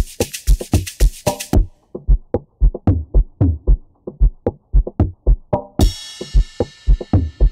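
Electronic music beat from a drum machine: deep kick-drum booms falling in pitch, with fast hi-hat ticks that drop out about a second and a half in. A cymbal crash comes about six seconds in and rings out.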